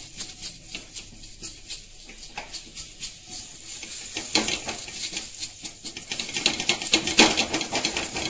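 Half an onion on a fork rubbed in repeated strokes across a warm, oiled iron tawa: an uneven scraping with many small ticks. This greases the griddle so the dosa will not stick.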